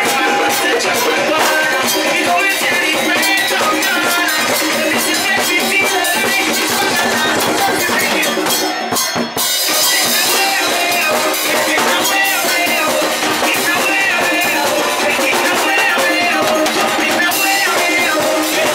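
Live percussion band playing a fast, steady groove on hand drums, a strap-hung snare drum and crash cymbals, with a brief drop in loudness a little before halfway.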